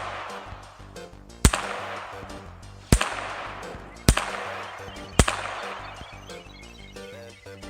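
Four handgun shots, about a second to a second and a half apart, each ringing out for about a second after the crack.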